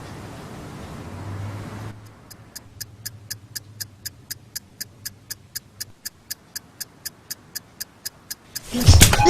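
Alarm clock ticking fast and evenly, about three to four ticks a second, after a couple of seconds of steady low noise. Near the end a sudden loud burst breaks in as the alarm starts.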